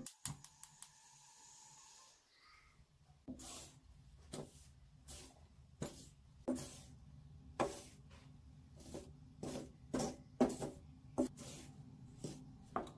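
Wooden spatula scraping and turning dry flour in a metal wok, in short strokes about every half second to a second, starting a few seconds in. Before the stirring there are a few light clicks and a faint steady hum.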